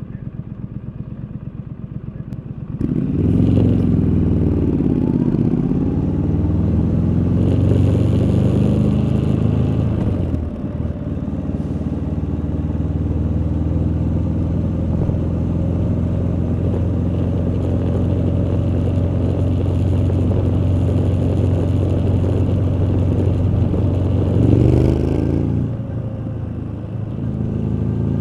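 2019 Triumph Street Scrambler's 900 cc parallel-twin engine idling with a fast, even exhaust beat. About three seconds in it pulls away, the revs climbing and falling back through the gears before settling into a steady cruise, with another rise and drop in revs near the end.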